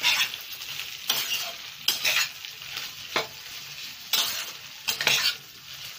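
A spoon stirring and scraping egg fried rice around a frying pan, a stroke about every second, over the sizzle of the rice frying.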